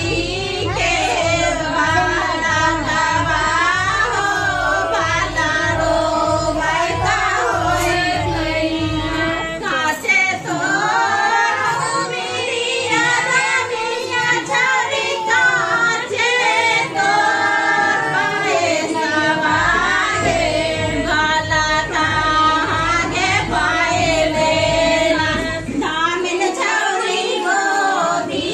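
Several women singing a traditional Bihari wedding folk song (geet) together, voices only.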